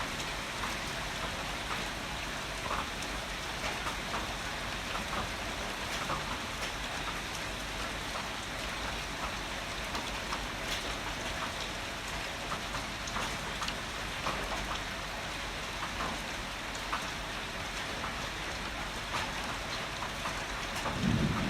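Steady rain falling, a continuous hiss with scattered sharper drop ticks. Just before the end a low rumble of thunder begins to swell.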